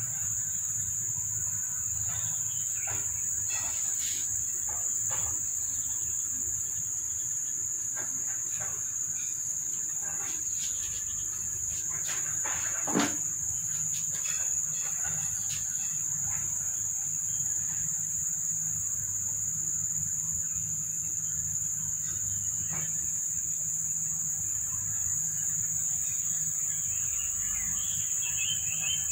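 Steady high-pitched insect drone that does not let up, over a low hum, with a few faint scattered clicks. A brief louder sound with a falling pitch about halfway through.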